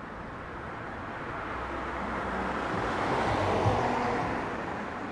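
A car passing on a street: the tyre and engine noise swells, peaks about three and a half seconds in, and fades as it goes by, over a low traffic hum.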